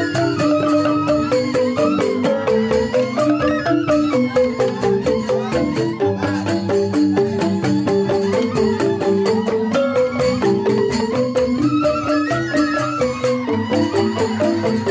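Joged bumbung gamelan playing: bamboo tube xylophones (grantang) strike fast, rippling patterns of notes over a drum, with a bamboo flute (suling) melody wavering above.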